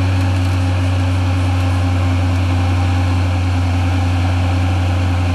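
Steady low mechanical drone of a Toyota Land Cruiser 40-series 4x4 being winched slowly up a rutted trail: its engine running, with the winch hauling on the line.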